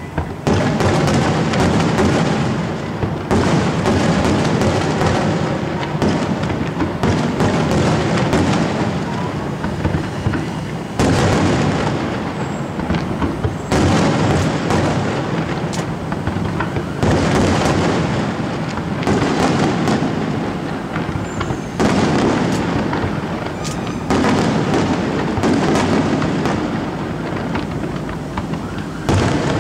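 Aerial fireworks display in a dense, continuous barrage: many overlapping booms and crackling bursts, with the mix shifting abruptly every few seconds.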